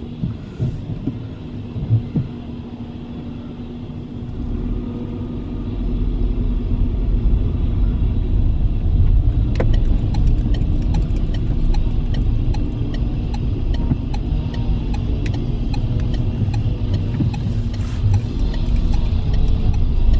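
Car engine and road rumble heard from inside the cabin as the car pulls away, building over the first few seconds and then steady. A few knocks in the first couple of seconds, and light clicks and rattles through the second half.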